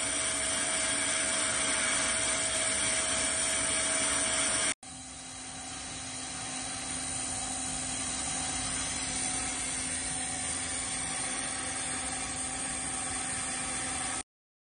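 Refurbished 1956 Hercus 9-inch lathe running under power on its three-phase motor and VFD: a steady whir with a faint whine. It breaks off abruptly about five seconds in, runs on with a lower whine, and stops suddenly near the end.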